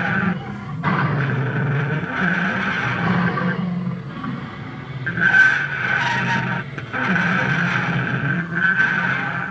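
Animatronic Tyrannosaurus rex model playing recorded roars and growls through its loudspeaker, in stretches of a few seconds with sudden breaks between them.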